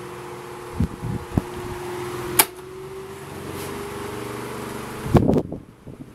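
A 1984 Galaxy 16-inch table fan running, its motor humming steadily under the rush of moving air. About two and a half seconds in there is a sharp click, and the motor hum then slowly rises in pitch. A cluster of loud knocks comes about five seconds in, and the sound drops after it.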